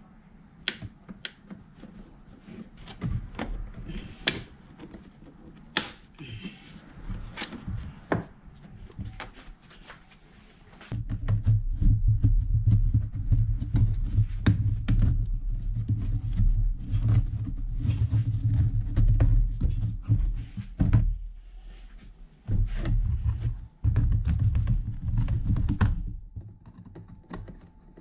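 Sharp clicks and knocks of a plastic engine cover and intake parts being handled and snapped into place. From about eleven seconds in, a loud low rumble takes over, cutting out abruptly twice.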